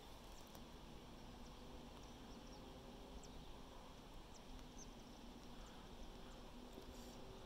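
Near silence: faint outdoor background with a low steady hum and a few brief, faint high chirps.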